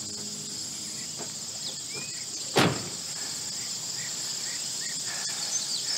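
Film soundtrack played through a hall's speakers: a steady chorus of crickets and other insects with scattered chirps, and a single loud thump of a vehicle door shutting about two and a half seconds in.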